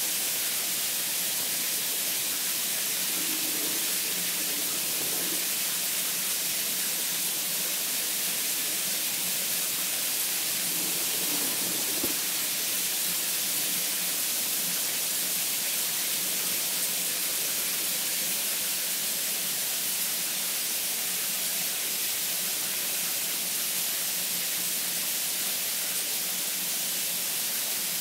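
Running shower heads spraying water onto tiled walls: a steady, even hiss of falling water.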